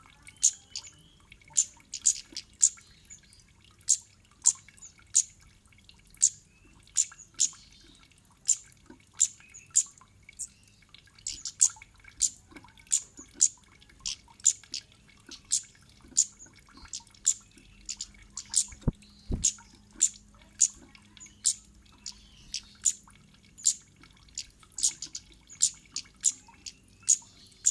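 Cit kemade bird calling over and over: short, sharp, high 'cit' chips, about two to three a second, played as a lure to make other kemade birds answer.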